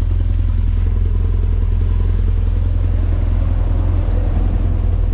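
BMW R1200GS Adventure's boxer-twin engine running steadily, a deep, even sound with a fast pulse.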